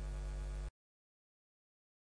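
Steady low electrical mains hum on the recording, cutting off abruptly under a second in, followed by dead digital silence.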